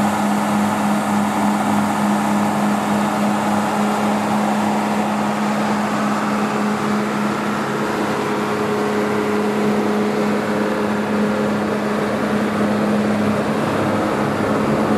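Idling coach engine, a steady unbroken hum with a strong low droning tone.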